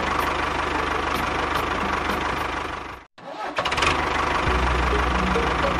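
Mini tractor engine running steadily with a fast low pulsing beat. The sound cuts out abruptly about three seconds in and comes back a moment later, deeper and stronger.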